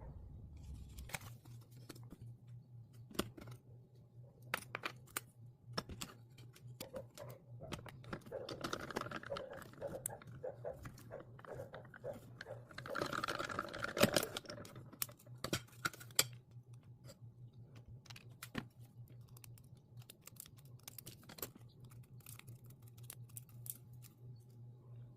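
Handling of paper and die-cutting plates: scattered light clicks and taps, with a stretch of paper rustling and crinkling in the middle, over a steady low hum.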